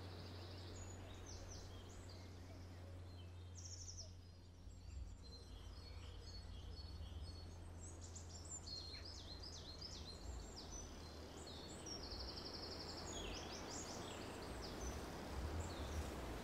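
Faint outdoor birdsong: several small birds chirping and trilling in short overlapping phrases, busier in the second half, over a steady low hum.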